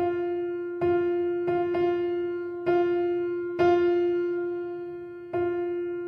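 Background music: a piano-like keyboard note repeated about seven times at an uneven pace, each strike ringing and fading before the next.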